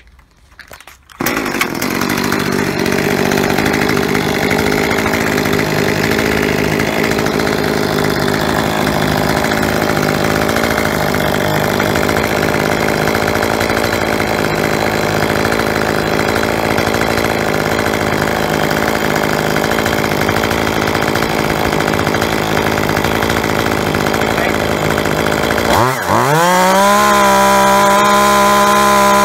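Echo CS-2511TES top-handle chainsaw's two-stroke engine held at full throttle while its high-speed mixture needle is set to the chart's 12,200–13,100 rpm range. It comes in abruptly about a second in and runs at high revs. Near the end it dips briefly, then its pitch rises and settles into a steadier, higher note at about 12,000 rpm.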